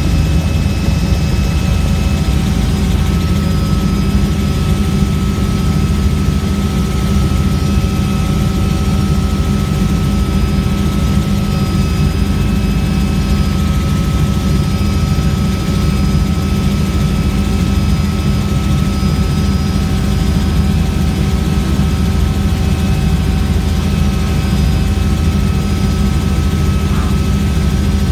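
Helicopter in steady flight: a loud, unchanging low rotor and engine drone with a few steady high whining tones over it.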